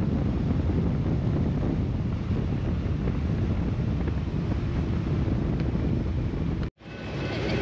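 Steady wind rushing over the microphone of a motorcycle riding along a highway. Near the end the sound cuts out for an instant, and a passing freight train comes in.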